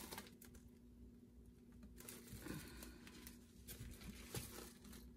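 Faint rustling and a few light taps of gloved hands and plastic sheeting as a wet acrylic-pour canvas is gripped and tilted, over a steady low hum.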